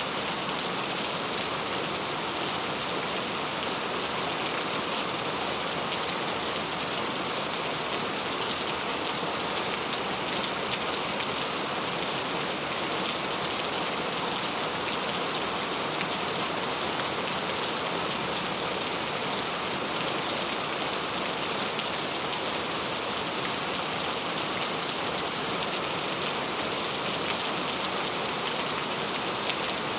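Steady rainfall, an even hiss of countless drops pattering on surfaces, with no thunder.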